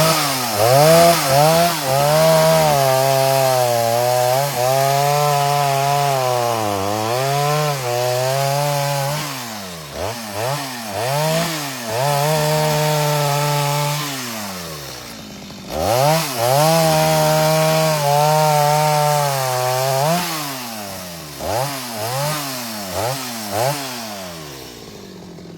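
Chainsaw cutting wood, its engine pitch held down under load through two long cuts, with quick revs up and down between and after them, dropping off near the end.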